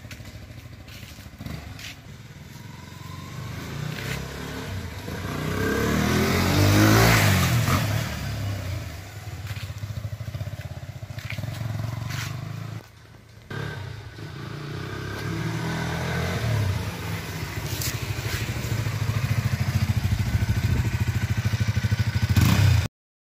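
KTM RC 200 single-cylinder engine through an RC 390 BS4 stock full-system exhaust, ridden past with a rise and fall in pitch about seven seconds in, then running close and loud near the end before cutting off suddenly.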